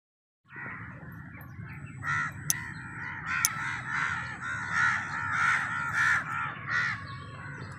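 Crows cawing over and over, over a low steady rumble, starting abruptly about half a second in. Two sharp clicks stand out in the first half.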